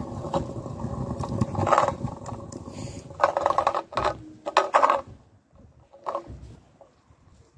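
Kick scooter wheels rolling over pavement: a steady rumble with a faint hum and small clicks, and louder clattering from about three seconds in. The rolling dies away about five seconds in, leaving only a few clicks.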